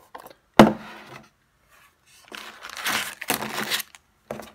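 Foil trading-card booster packs crinkling and rustling as they are handled, with a single sharp knock about half a second in.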